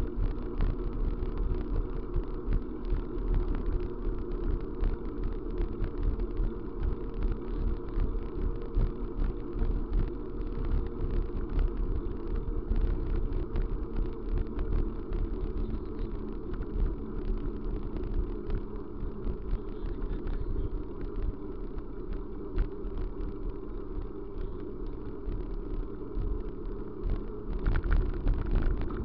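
A vehicle on the move: steady travel noise with frequent small knocks and jolts.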